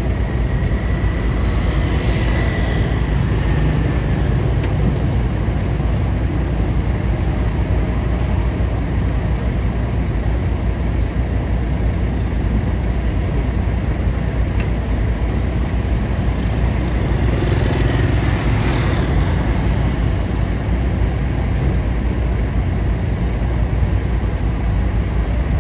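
Motor vehicle engine running steadily with a heavy low rumble, swelling louder briefly about two seconds in and again around eighteen seconds in.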